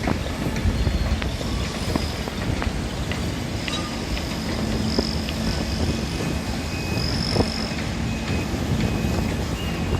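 Construction site noise: heavy machinery running steadily with a low hum, and scattered metallic clanks and knocks.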